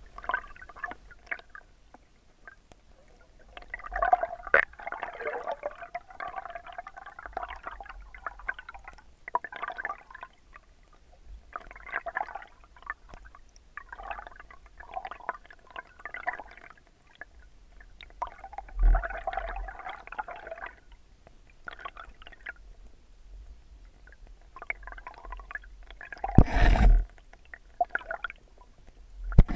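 Creek water heard underwater: muffled gurgling that comes and goes in irregular surges every second or two. A low thump comes about two-thirds of the way through, and a louder knock near the end.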